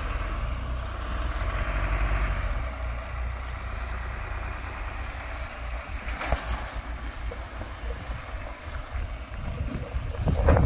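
Ford Endeavour SUV's engine running with a low rumble as it drives slowly over rough dirt, swelling briefly about two seconds in. A sharp knock comes about six seconds in and a louder one near the end.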